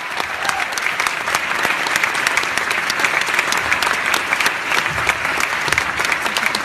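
Audience applauding: many hands clapping steadily in an auditorium.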